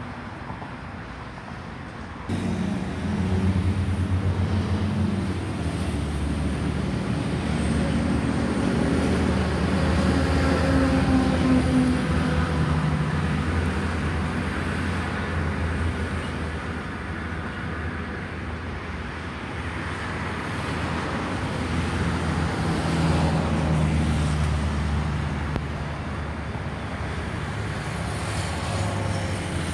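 A steady low engine drone that comes in abruptly about two seconds in and holds, with a deep hum underneath.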